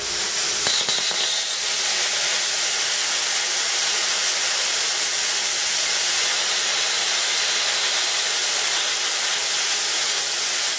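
High-frequency-start plasma cutter arc cutting 5 mm steel plate at 15 amps: a hard, steady hiss of the arc and its air stream that starts abruptly. The current is too low for this thickness and the cut does not go all the way through.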